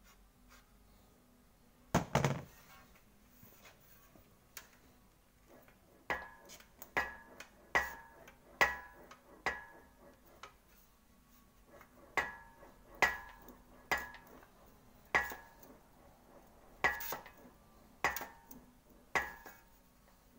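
Sheet-metal quarter-panel repair section being worked back and forth through an English wheel, giving sharp metallic clanks with a short ringing tail about once a second, in two runs of about five and seven. A heavier knock comes about two seconds in.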